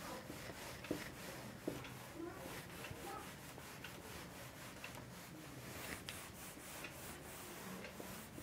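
Cloth duster wiping a whiteboard: faint, repeated rubbing strokes of cloth on the board, with a few light taps.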